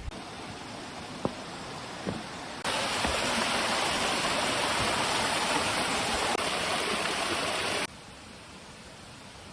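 Rushing water of a forest stream, a steady hiss that comes in suddenly and loud a few seconds in and cuts off just as suddenly near the end. Before it there is a quieter outdoor hiss with a couple of faint snaps.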